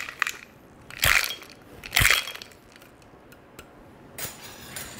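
Two sharp knocks about a second apart on a metal cocktail shaker fitted over a glass, holding ice and a freshly shaken drink, once the shaking has stopped, then a faint shifting of ice near the end.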